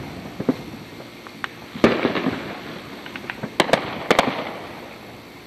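Fireworks going off: scattered sharp bangs, the loudest about two seconds in and a quick cluster of several near four seconds, with crackling between them.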